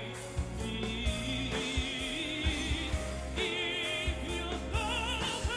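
Male singer performing a slow ballad with orchestral strings, holding long notes with wide vibrato over steady low accompaniment.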